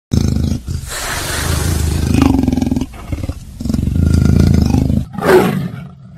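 Leopard growling and roaring: a run of about five rough, rasping calls, the longest lasting about two seconds.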